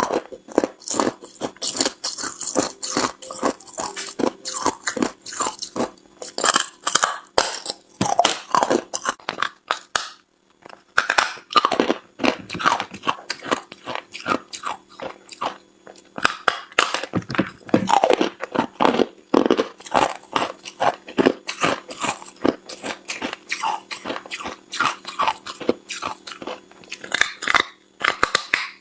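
A person biting and chewing ice close up, with rapid, sharp crunches as the pieces crack between the teeth and a short pause about ten seconds in.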